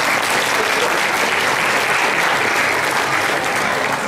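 Audience applauding, a steady dense clapping that begins to die away near the end.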